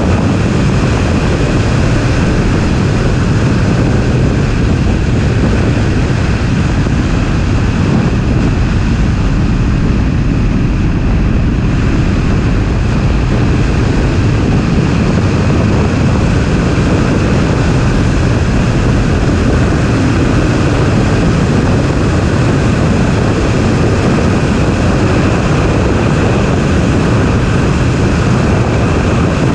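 BMW E30 drift car with an M20 inline-six, driven at speed on track and heard through a GoPro mounted outside on the car. Engine and wind noise blend into a steady, loud rushing sound with no clear pitch.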